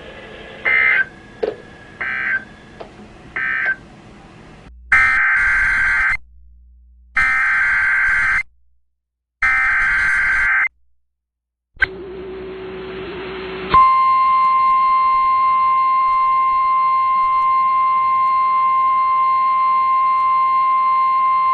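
NOAA Weather Radio Emergency Alert System signalling. It begins with three short SAME data bursts closing the previous message, then three longer warbling SAME header bursts that announce a new alert. After a moment of hiss, the steady 1050 Hz warning alarm tone sounds for about nine seconds, heralding a severe thunderstorm warning.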